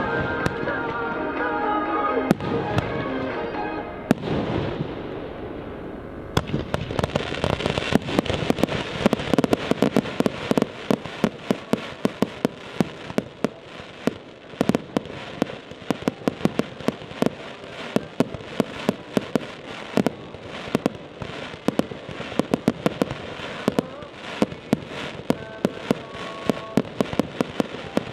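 Fireworks going off in a dense run of sharp crackles and pops, many a second. Music plays over them for the first several seconds, then drops away.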